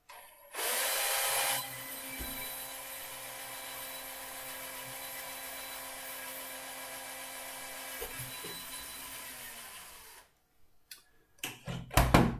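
Cordless drill with a 2.5 mm bit drilling a pilot hole right through a piece of wood, with a steady motor whine; loudest for the first second, then running evenly for about nine more seconds before it stops. A few sharp knocks near the end.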